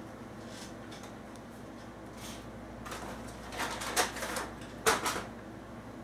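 Makeup packaging being handled: a short run of clicks, taps and rustles as boxed products are set down and picked up, loudest about four and five seconds in, over faint room hiss.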